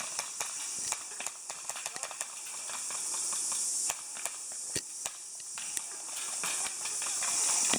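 Irregular sharp clicks and snaps of airsoft guns firing during a game, over a steady high-pitched hiss that swells toward the end.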